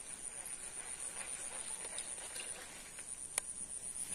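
Footsteps wading through shallow floodwater: a quick, irregular run of small splashes and sloshes, with one sharp click about three seconds in, over a steady high-pitched insect drone.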